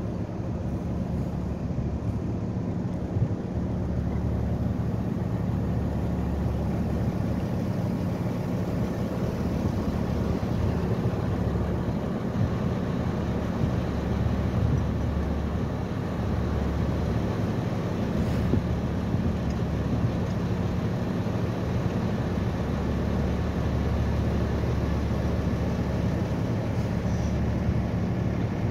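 Passenger river boat's engine running with a steady low hum, over a continuous rush of water and air as the boat cruises along.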